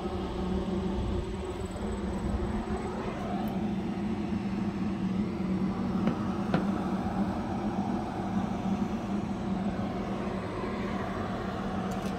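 A steady engine drone with an even, unchanging pitch. Two light clicks come about six seconds in.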